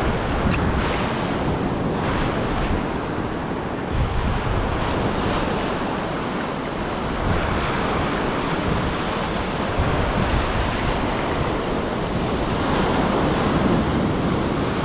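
Ocean surf breaking and washing up a sandy beach, a steady rushing wash, with wind buffeting the microphone.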